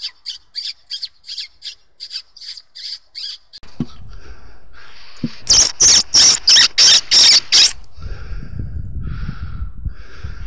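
Short, sharp high-pitched calls repeated evenly, about three a second at first, then a much louder and faster run of about five a second, over a rising hiss of outdoor background noise.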